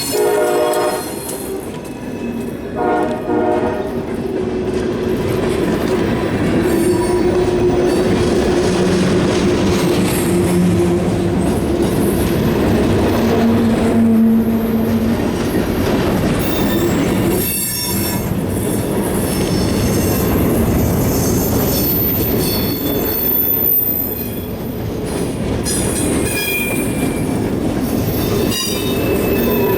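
CSX freight train of ash cars rolling past, steel wheels rumbling on the rails with wheel flanges squealing on and off throughout.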